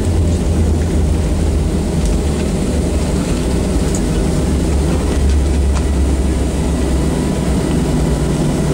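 Steady low rumble inside the cabin of a Boeing 737 slowing on the runway just after landing, from the jet engines and the wheels rolling on the runway.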